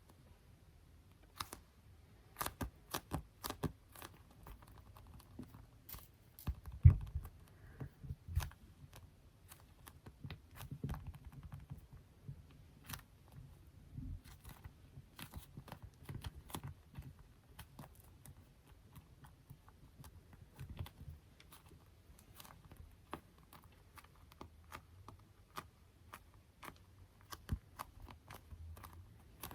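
ASMR tapping: fingertips and nails tapping and patting on small objects, many light, sharp taps at an uneven pace with a few softer, duller pats. The loudest is a thump about seven seconds in.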